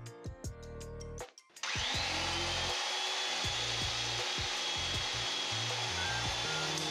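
Background music, then about a second and a half in an electric pipe threading machine starts up and runs steadily with a high whine, threading a 15A steel pipe.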